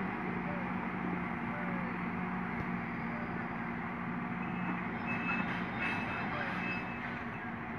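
Caterpillar 120G motor grader's diesel engine running steadily as it backs over gravel. A back-up alarm beeps three times about two-thirds of the way through.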